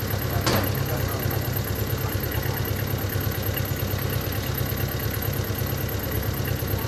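A vehicle engine idling with a steady low hum, and a single sharp knock about half a second in.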